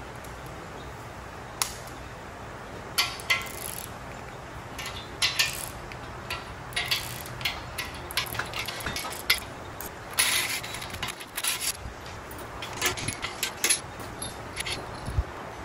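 Small metal engine parts and tools clinking and clattering as they are handled at a bare cast-iron engine block. The clinks are irregular and short, and a few ring briefly, over a low steady hum.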